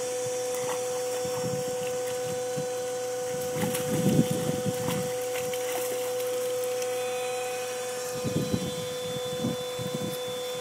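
A Greater Swiss Mountain Dog splashing and snapping at a small jet of water in a pool's shallow ledge. The splashing comes in bursts about four seconds in and again around eight to ten seconds in, over a steady hum with the hiss of water.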